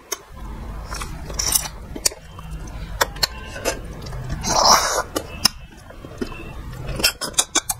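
Close-miked mukbang eating sounds: chewing and wet lip smacks as fried fish is eaten by hand, heard as many sharp, uneven clicks, with one louder breathy burst a little over halfway through.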